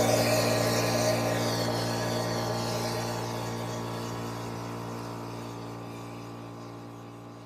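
Air compressor running with a steady hum and a hiss, fading away gradually.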